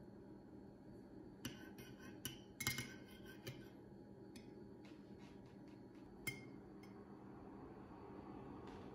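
Metal spoon clinking and tapping against a ceramic ramekin as minced garlic is scraped in and stirred into melted butter. There is a cluster of clinks about one and a half to three and a half seconds in, lighter ticks after, and one sharp clink a little past six seconds, over a faint steady hum.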